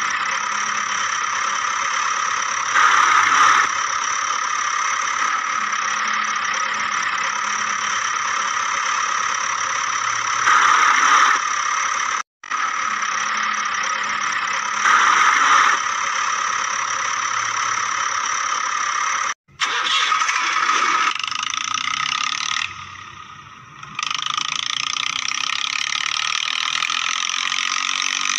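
Steady engine sound effect with a high whine, swelling louder briefly three times and cutting out twice for a moment midway.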